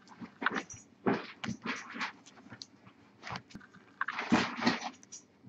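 Trading cards being handled by hand: soft irregular rustles and light clicks of card stock, with the loudest cluster about four and a half seconds in.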